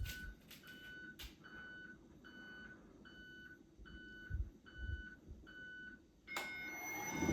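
Faint electronic beeper on a siren control panel giving short high beeps about every three-quarters of a second. About six seconds in, a click and a steady high whine as the variable-frequency drive starts, and the Gent siren begins to wind up at the very end.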